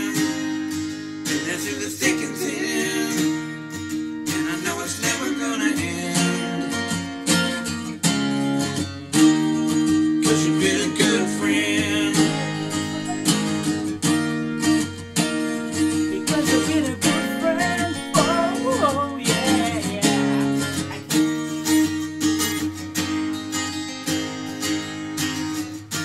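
Song with strummed guitar and singing played at full volume through JBL portable Bluetooth speakers, picked up by a recorder about six feet away; the Flip 3 and the Charge 3 take turns playing it.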